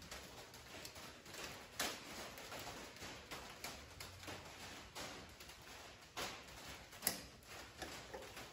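Faint metallic clicks and taps of a C-clip being worked onto a tractor rockshaft, with a few sharper clicks about two seconds in and again near the end.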